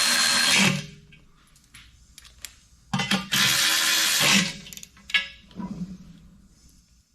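Power tool running in the bolts that hold a bell housing to a lathe fixture: two bursts of about a second and a half each, the first ending just under a second in and the second about three seconds in, with light metal clicks and knocks between and after.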